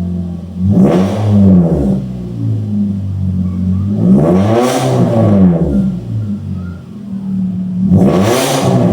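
Toyota Yaris GR Sport engine through an aftermarket full-system exhaust with a single muffler, idling and blipped three times, the pitch climbing and falling back to idle each time.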